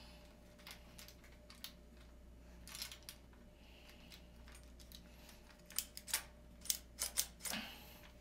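Clicks and small knocks of a ring light's phone holder being fitted and adjusted by hand, a few scattered at first, then a quick run of sharper clicks about six to seven seconds in.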